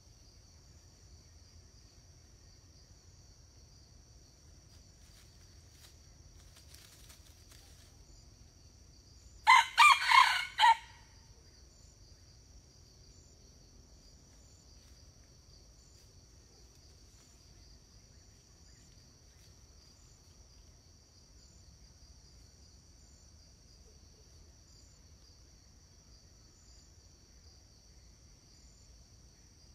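Red junglefowl rooster crowing once, a short crow in about four quick parts about a third of the way in, over a steady high drone of insects.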